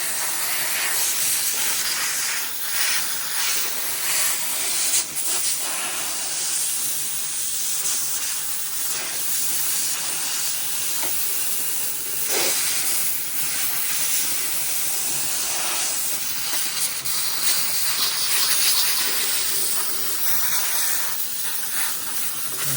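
Small steam cleaner jetting steam with a steady hiss, blasting grease and loose paint off the engine's parts.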